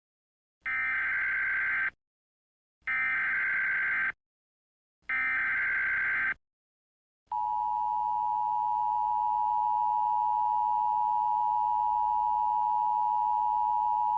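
Emergency Alert System header: three short, evenly spaced bursts of SAME digital data noise, each a little over a second long. About seven seconds in, the steady two-tone EAS attention signal begins. This sequence signals that an emergency alert message is about to be broadcast.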